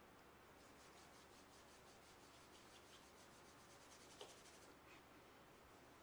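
Near silence: faint room hiss with light rubbing or rustling ticks, and one small click a little after four seconds in.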